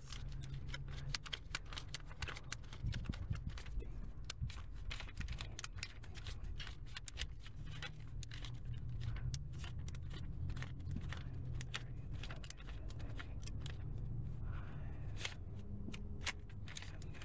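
Paper banknotes being counted by hand: a long, irregular run of crisp flicks and rustles, over a low steady hum.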